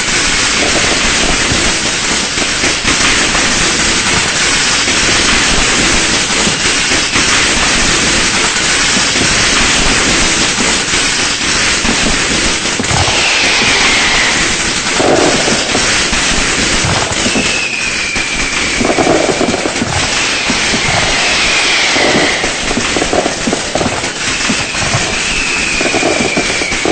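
Dense, continuous crackle of firecrackers and fireworks going off in rapid succession. From about halfway through, a short high whistle falling in pitch cuts through it several times.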